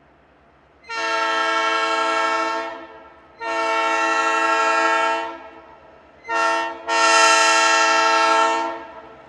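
Diesel locomotive's air horn blowing the grade-crossing signal as the train approaches: two long blasts, a short one, then a final long one.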